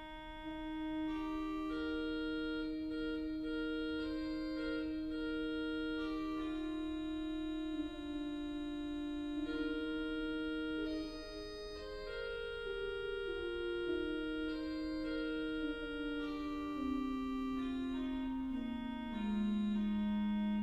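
Organ music: slow, sustained chords held for several seconds each, with the lower line stepping downward over the last few seconds.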